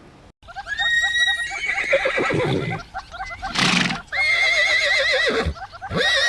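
Horse whinnying: two long, wavering calls, with a short breathy blow between them and another whinny starting near the end.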